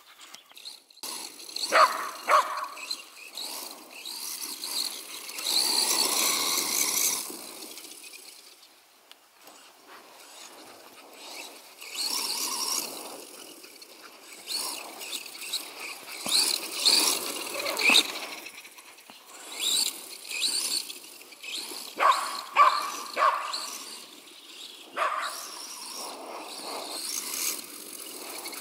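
Shetland sheepdog barking in short bursts while chasing a small RC car, whose motor whines up and down in spurts as it drives.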